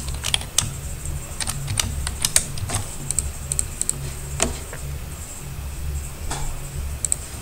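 Computer keyboard keystrokes: a quick run of typing in the first few seconds, then a few isolated clicks, over a steady low hum.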